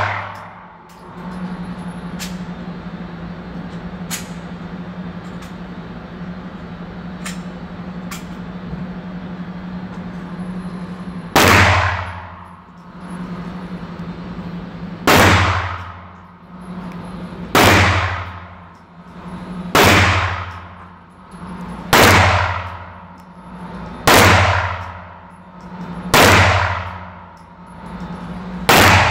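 Gunshots in an indoor shooting range: after a few faint cracks, eight loud shots about two seconds apart in the second half, each ringing off the walls as it dies away. A steady low hum runs underneath.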